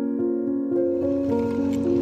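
Background music of soft, piano-like keyboard notes. About two-thirds of a second in, a faint steady hiss joins underneath.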